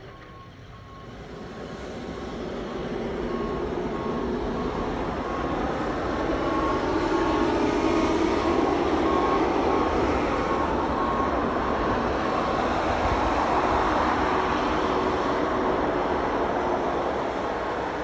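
A snowplow truck approaching and passing with its plow blade down, its engine and the rush and scrape of the blade pushing snow along the road. The noise swells over the first few seconds, holds, and begins to fade near the end.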